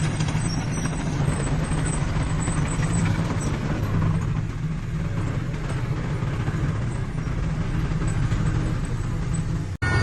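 Heavy diesel earthmoving machinery running steadily, with a low engine hum, cutting out abruptly for an instant near the end.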